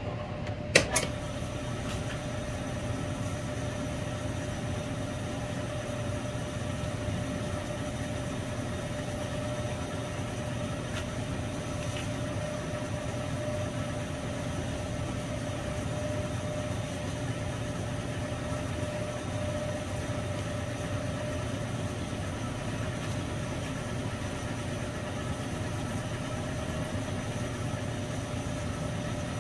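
Benchtop milling machine running steadily with a constant whine while an end mill cuts into a metal crankcase block. There is one sharp click about a second in.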